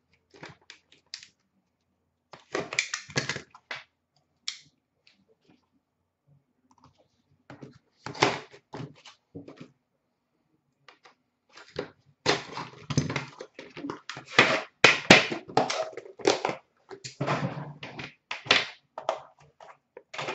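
Cardboard trading-card box being cut open and its tin slid out and handled. Irregular scraping, tapping and rustling of cardboard and packaging, sparse at first and much busier over the second half.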